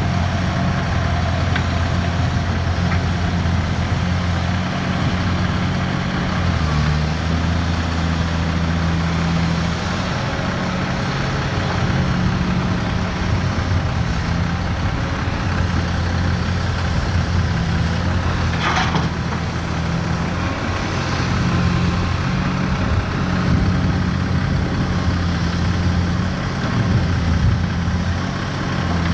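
MAN eight-wheel tipper truck's diesel engine running as it drives on a gravel haul road, its low engine note stepping up and down. A brief hiss sounds about two-thirds of the way through.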